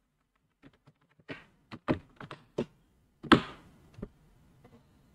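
Typing on a computer keyboard: a quick run of separate keystrokes, then one louder thunk about three seconds in and a last click just after.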